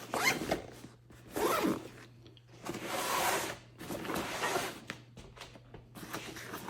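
Backpack pocket zipper being pulled in several rasping strokes, about four, the longest about halfway through, with gear being handled in the pocket.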